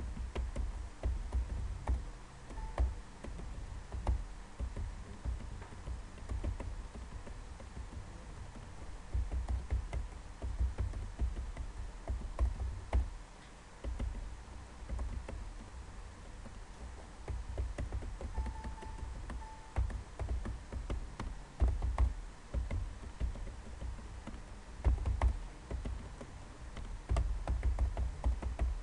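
Computer keyboard being typed on in irregular runs of key clicks with dull low thumps, as router configuration commands are entered. A few faint short beeps sound now and then.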